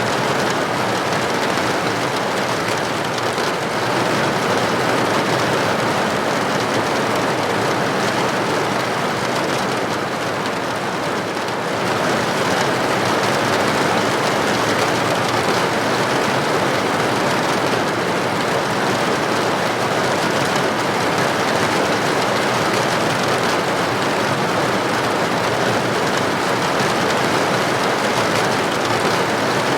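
Steady, even rain noise, with a slight easing about ten seconds in before it picks up again.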